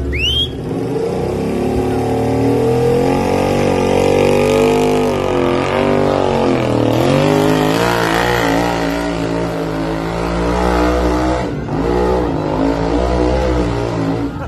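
Motorcycle-engined mini modified pulling tractor running hard at high revs as it drags the sled down the track. The engine note climbs, sags around the middle of the pull, dips briefly near the end, then picks up again.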